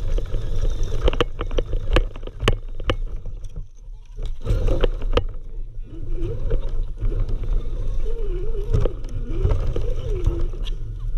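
1:10 scale RC rock crawler driving over a rough dirt and leaf-litter trail, heard from a GoPro mounted on the car: a steady low rumble of vibration with frequent sharp clicks and knocks from the chassis and tyres over bumps. From about halfway a wavering whine rises and falls in pitch with the throttle.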